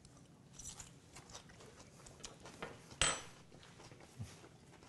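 Metal forks with a few faint clicks, then one sharp metallic clink about three seconds in, as a fork knocks against a bowl or the counter.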